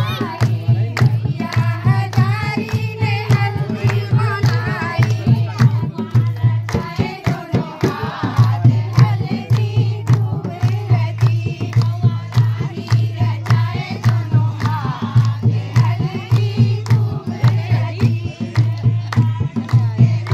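Group of women singing a mangal geet wedding song together, with a dholak drum keeping a steady beat and hands clapping along.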